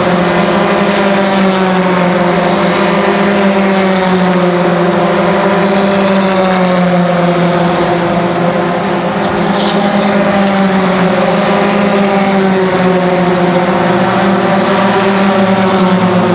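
Racing engine drone, loud and steady at one pitch. A second, deeper engine note joins near the end as a TC2000 touring car rolls down the pit lane.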